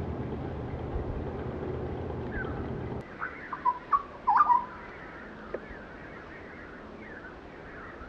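White-eared bulbul calling: a quick burst of short chirps and whistles that bend in pitch, loudest about four seconds in, then a few faint chirps. Before it, a steady low rumble cuts off abruptly about three seconds in.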